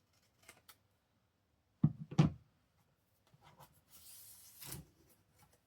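Paper and scissors being handled on a craft table: two small clicks, then two sharp knocks about two seconds in, then about a second of paper rustling that ends in a soft thump near the end.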